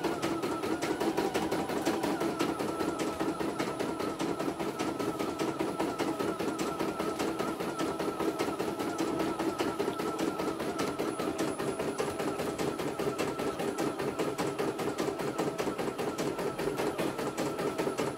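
CNY E900 computerized embroidery machine stitching a design, its needle striking at a rapid, even rate over a steady motor hum.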